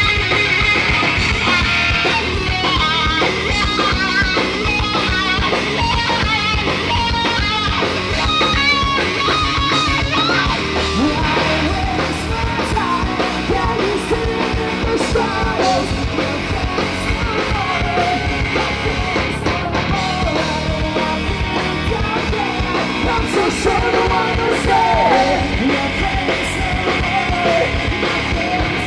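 Rock band playing live through a PA: distorted electric guitars, bass guitar and a drum kit, with a male singer's vocals over them.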